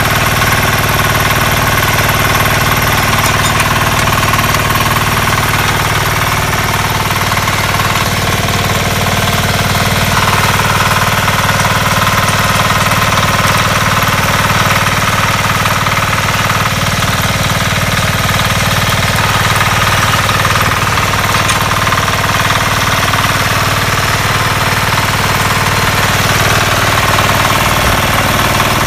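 Diesel engine of a dual rotary power weeder running steadily and loudly, with a fast, even chug.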